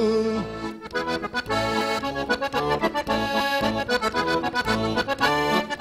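Accordion playing a short interlude between sung verses of a Sardinian arrepentina: a melody of quick changing notes over a pulsing bass. A singer's held note fades out just after the start.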